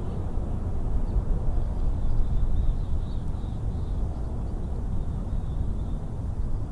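Wind buffeting the nest-camera microphone: a steady low rumble that swells about a second in and eases after about three seconds.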